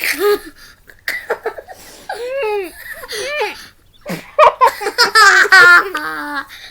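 Children laughing, getting louder in a fast run of high-pitched giggles over the last couple of seconds.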